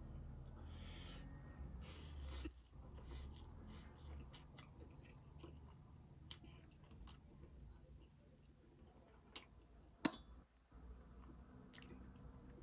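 Close-up eating sounds: noodles being slurped off a fork and chewed, with soft clicks of a fork on a steel bowl and one sharp click about ten seconds in. A steady high insect trill, crickets, runs underneath.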